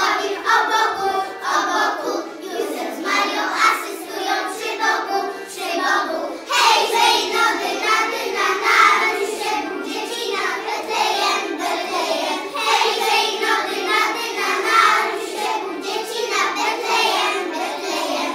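A group of young children singing a Polish Christmas carol together, with the singing stopping at the very end.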